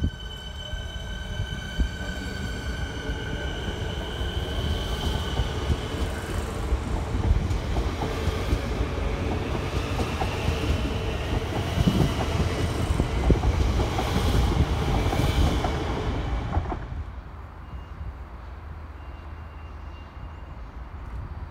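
Siemens Nexas electric suburban train pulling away from a platform: a high motor whine that rises as it accelerates, over wheel rumble that builds as the carriages pass. The sound drops suddenly about seventeen seconds in to a quieter, distant rumble.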